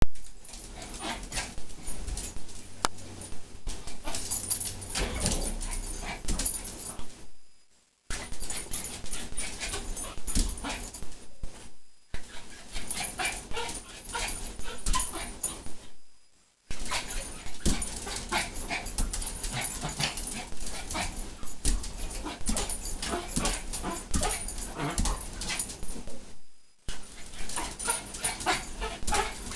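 Pomeranian yapping and whining excitedly as it jumps, with many sharp clicks of its claws on the tile floor. The sound cuts out completely for a moment about four times.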